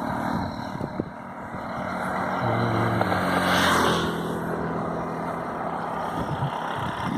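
Motor vehicle engine running, its pitch stepping down about four seconds in, over a steady rush of road and air noise that swells briefly near the middle.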